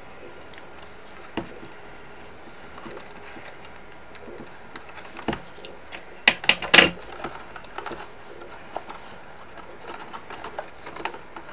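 Card pieces of a die-cut paper box being handled and pressed together by hand: scattered taps and light crinkles of card, with a quick cluster of sharp clicks a little past the middle.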